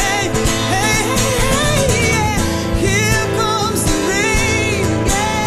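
Live unplugged band performance of a pop song: a woman singing, her voice wavering in pitch, over guitar accompaniment.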